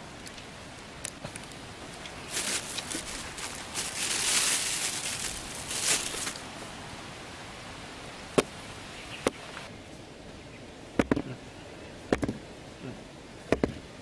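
Hands scraping and brushing sandy soil, a scratchy rustle for a few seconds, followed by about five separate sharp clicks and knocks as the plastic basket and bamboo trigger sticks of a bird trap are handled and set.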